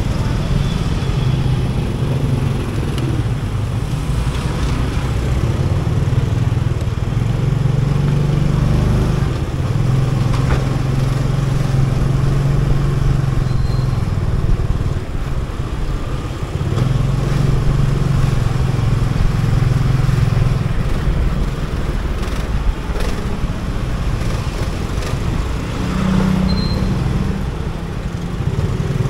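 Motorcycle engine running at low speed, easing off and picking up again several times, with street noise around it.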